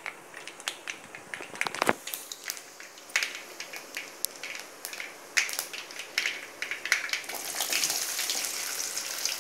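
Whole spices (mustard, cumin and fennel seeds) crackling in hot oil, with scattered sharp pops and a single knock a couple of seconds in. About seven seconds in, sliced shallots go into the oil and a steady sizzle takes over.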